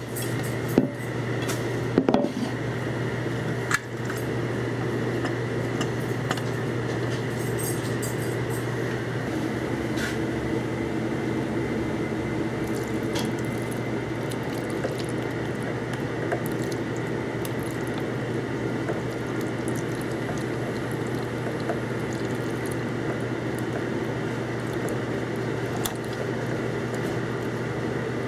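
Liquid sloshing and dishes clinking over a steady low hum, with a few sharp knocks in the first four seconds.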